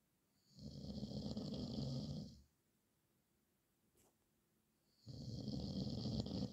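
A man snoring: two long, rough snores, each about two seconds, with a pause of a few seconds between them and a faint click in the gap.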